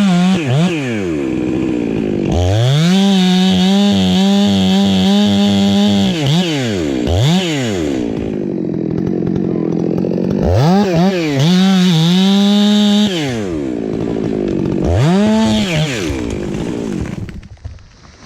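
Chainsaw making the back cut on a tree, revving up to full throttle and falling back several times, with long stretches held at full speed, then dying down near the end.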